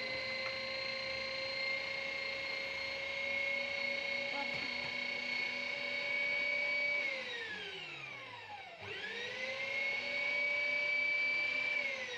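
Electric meat grinder's motor running with a steady high whine. About seven seconds in it winds down, about two seconds later it spins back up, and it begins winding down again near the end.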